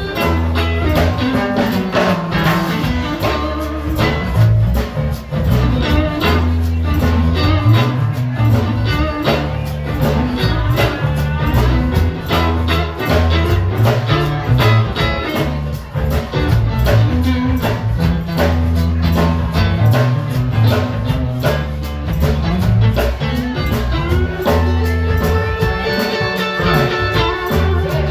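Band music with electric guitar, a moving bass line and a steady drum beat.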